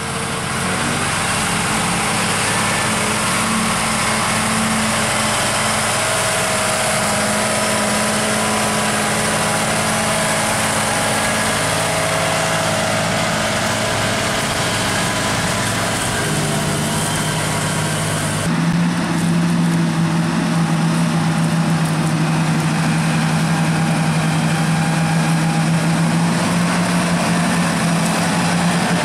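John Deere 8R-series tractor six-cylinder diesel engines running steadily under load while pulling reversible ploughs through the soil. About two-thirds through, the sound changes abruptly to a lower, steadier engine note.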